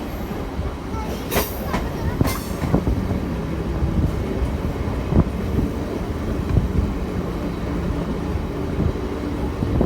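Moving train heard from inside a carriage: a steady rumble of wheels on the track with scattered clatter and knocks, and two brief high squeals about one and two seconds in.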